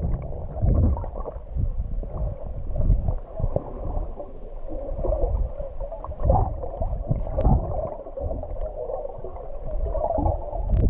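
Muffled underwater sound of moving water heard through a waterproof camera housing, with many irregular low thumps.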